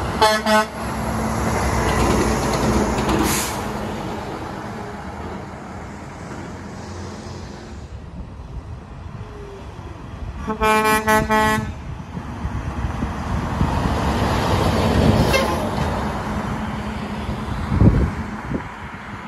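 Dump trucks driving past, their diesel engines swelling as they go by. Air horns sound in a few quick blasts at the start and again in several short blasts about halfway through. Near the end a low thump.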